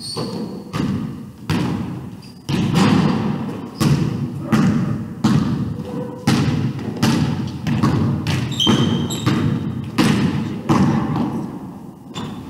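Basketball being dribbled on a hardwood gym floor: a steady run of bounces about one every three-quarters of a second, each echoing through the large hall.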